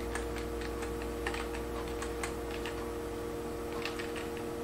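Computer keyboard keys being pressed: a string of light, irregularly spaced clicks, with a steady hum underneath.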